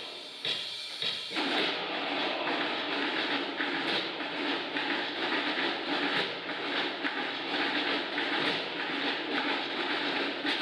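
A large group of drummers playing a sustained massed drum roll on waist-slung drums, a dense, steady rattle that takes over from a few separate hits about a second in.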